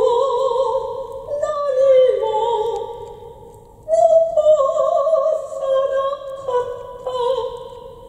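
A woman singing a slow Japanese art song through a handheld microphone, in two long phrases of held, wavering notes.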